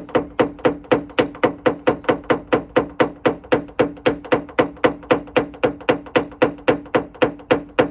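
Paintless dent repair tap-down tool tapping on a car bonnet, an even run of about four taps a second, each with a short metallic ring from the panel. It is knocking down the crown, the raised ripple of stretched metal left around the pushed-out dent.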